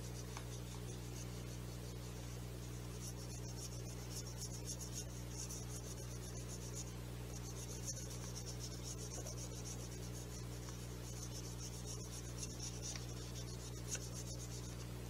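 Rubber eraser rubbing back and forth on paper, erasing pencil lines: a soft scratchy rasp that comes in stretches from about three seconds in, with short pauses between them.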